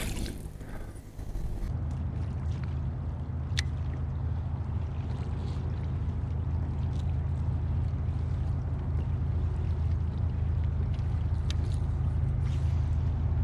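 Kayak moving across the water: a steady low hum begins about two seconds in, with water washing along the hull and a couple of light clicks.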